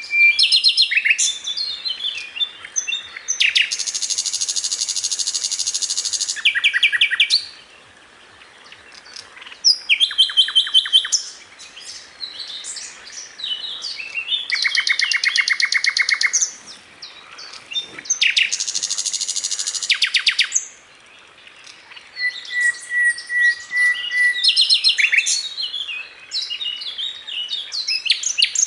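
Sikatan londo (flycatcher) masteran song: a varied string of high, rapid trills and repeated chirping notes. Two long, dense rattling phrases stand out, and a thin steady whistle comes in just past the middle, with brief pauses between phrases.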